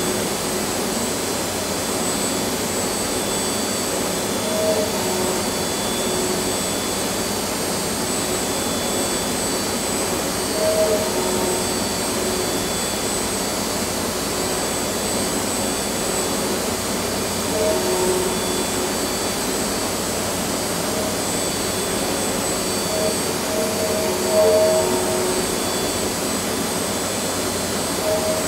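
CNC milling machine's high-speed spindle cutting industrial modelling clay: a steady hissing whoosh with thin high whines, and a brief louder swell with a mid-pitched tone about every six or seven seconds.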